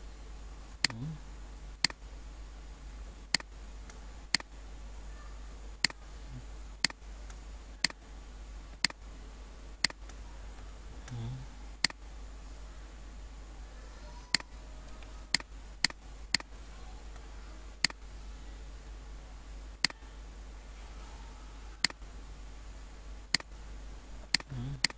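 Computer mouse clicking: single sharp clicks roughly once a second at uneven spacing, each one placing a pen-tool anchor point, over a steady low hum.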